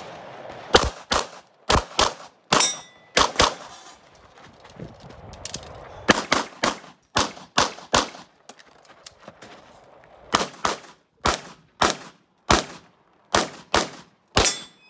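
Handgun fired in quick pairs of shots, about twenty in all, in bursts with short pauses between them as the shooter works through a practical shooting course of fire.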